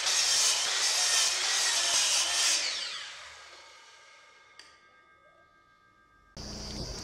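Electric miter saw cutting through a thick wooden block. The cut ends about three seconds in and the blade spins down with a falling whine that fades away. A single click follows a second and a half later.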